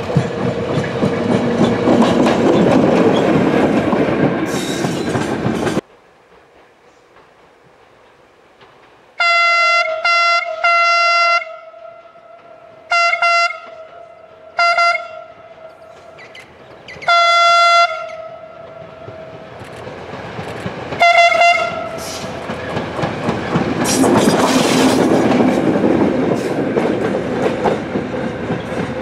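Diesel locomotive BB 64047, of the ex-SNCF BB 63500 series, running past close by with a loud engine rumble that drops away suddenly about six seconds in. It then sounds its horn in a series of about seven short blasts while approaching from afar, and passes close again with loud engine and running noise near the end.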